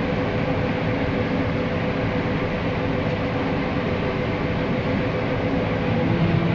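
Combine harvester running while harvesting corn, heard from its cab: a steady mechanical drone with a steady hum in it. A lower hum joins about six seconds in.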